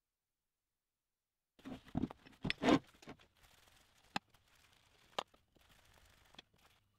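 Metal tool work on a cast-iron milling-machine spindle housing: a short flurry of knocks and scrapes about a second and a half in, then a few separate sharp clicks as a screwdriver works the screws of the housing's cover plate.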